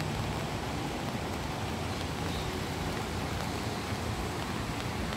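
Steady rain falling on and around a shelter roof, a constant even hiss, with a low steady hum underneath.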